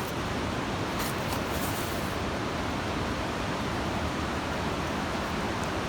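Steady rushing of the Coquihalla River's water.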